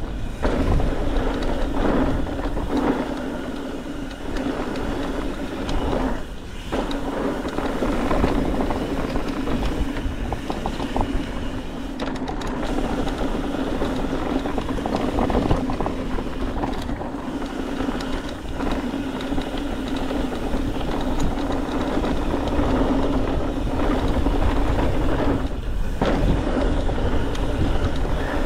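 Mountain bike riding fast down a dirt trail: a steady rush of tyres rolling over dirt and gravel, with wind buffeting the rider's camera microphone and the bike rattling over the bumps. A steady hum runs underneath and breaks off briefly twice.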